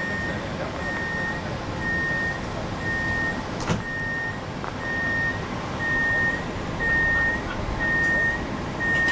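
A high electronic beep repeating about once a second, each about half a second long, from a stationary passenger train's door warning signal, over the train's steady hum. A single sharp click about four seconds in.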